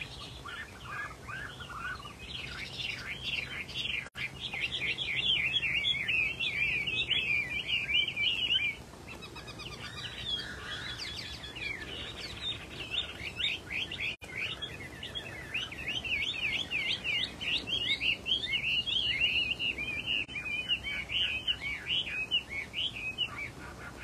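Chinese hwamei singing a long, rapid run of varied whistled phrases. It is loudest in the first third, drops softer about nine seconds in, then builds again and sings on steadily until near the end.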